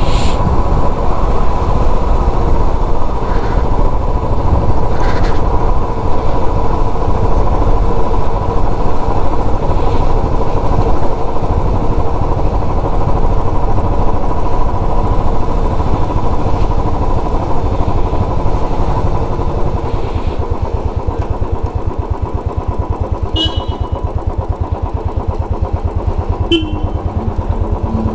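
Royal Enfield Classic 350's single-cylinder engine running as the motorcycle is ridden along, a steady rapid thump, easing a little in the last several seconds.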